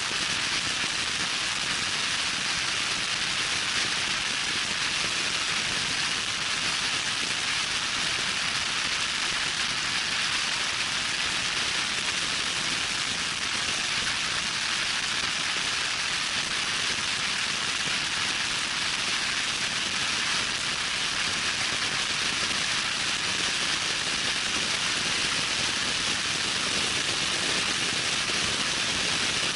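Loud, steady wind noise rushing over the microphone of a vehicle moving at speed, an even hiss with no breaks.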